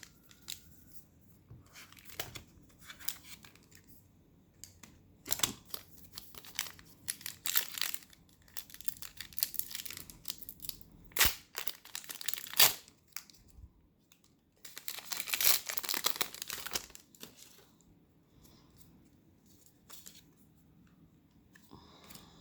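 Foil booster-pack wrapper being torn open and crinkled, in scattered sharp crackles with a longer burst of tearing and crinkling about fifteen seconds in.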